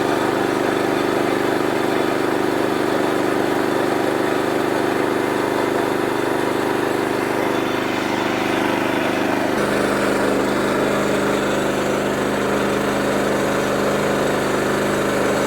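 Sawmill running steadily as it cuts through a black walnut log, a constant engine-like drone that shifts in pitch about ten seconds in. The going is slow because walnut is a hard wood.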